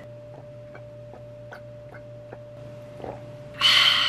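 A person gulping a drink from a glass bottle: about six soft swallows, evenly spaced at a bit more than two a second. Near the end comes a loud, breathy satisfied 'kyaa' exhale after the drink.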